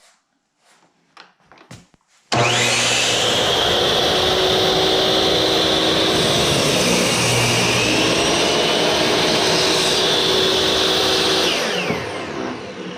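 Electric power saw switched on about two seconds in, running with a steady whine that dips briefly in pitch as the blade cuts through the end of a wooden board, then winding down near the end.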